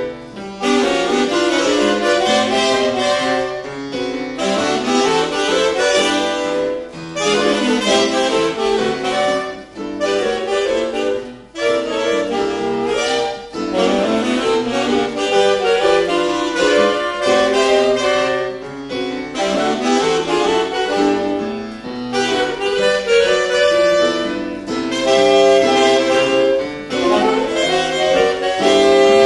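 A small ensemble of saxophones playing a melodic piece in harmony with piano accompaniment, in phrases with brief breaks between them.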